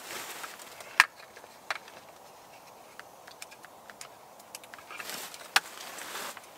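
Rustling and a few sharp clicks from hands handling a string of battery-powered Christmas lights against a wall of wooden poles. The loudest clicks come about a second in and again about five and a half seconds in.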